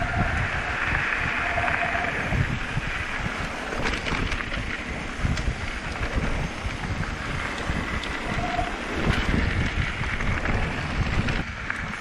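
Wind buffeting a bike-mounted camera's microphone while a mountain bike rolls along a dirt and gravel track: a steady rumble and hiss of tyres on loose ground, with occasional small clicks and rattles.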